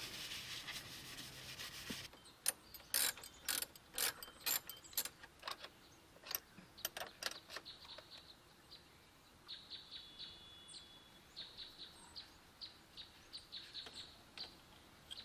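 About two seconds of rubbing, as from a rag wiping the oil filter, then a run of sharp, irregular clicks and clinks of metal parts and tools being handled. In the second half, faint short bird chirps repeat.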